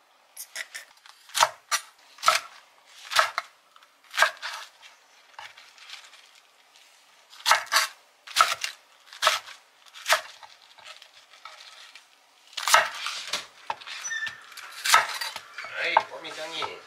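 Chef's knife cutting napa cabbage and bok choy on an end-grain wooden cutting board: single sharp knocks about a second apart, coming faster and busier near the end.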